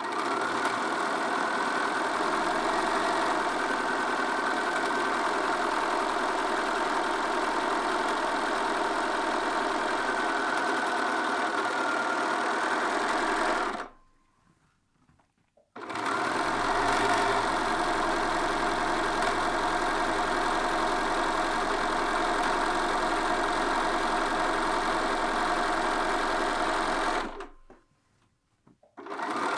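A Bernina sewing machine stitching steadily at an even speed, edge-stitching a folded hem down. It stops for a couple of seconds about halfway through, starts again, then stops briefly once more near the end before starting up again.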